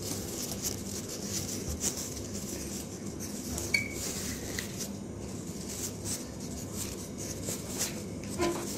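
Faint rustling and rubbing of a paper strip being wound by hand on pencil rollers, with a few light taps.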